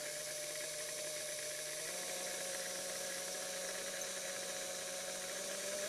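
Hamilton Beach Model G mixer's motor running at low speed, a steady hum with a hiss, stepping slightly up in pitch about two seconds in. At this setting its speed-control contacts are opening and closing rapidly and arcing a little, which the owner isn't sure is normal.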